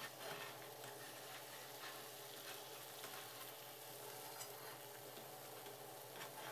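Beaten egg sizzling faintly in an oiled wok as it sets into a thin omelette sheet, with a few faint light clicks.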